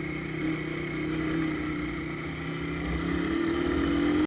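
Shineray Phoenix 50 cc single-cylinder motorcycle engine running with a hole drilled in its exhaust pipe, which makes it loud. Its note holds steady, then the revs rise slightly near the end.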